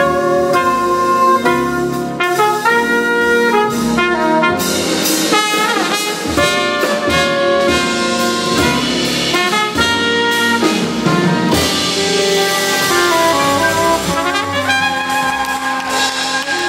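Small jazz band playing: soprano saxophone and trumpet play lines over piano, double bass and a drum kit with cymbals. Near the end the horns hold long notes.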